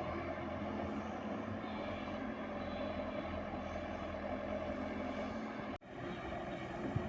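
JCB 120 excavator's diesel engine running steadily at working speed. The sound drops out for an instant about six seconds in, then carries on.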